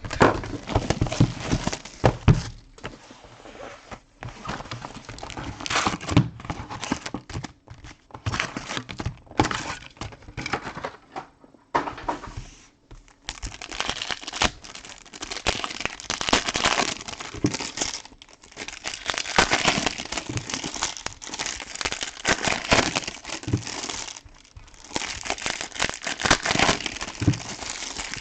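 Foil trading-card pack wrappers and packaging crinkling and rustling in irregular spells as they are handled, with small clicks and taps.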